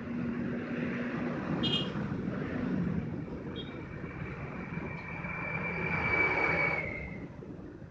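Oxy-acetylene torch hissing steadily as it works on a car's steel exhaust pipe, with a low hum underneath. A thin high whistle joins about three seconds in; the hiss swells and then drops away with it about a second before the end.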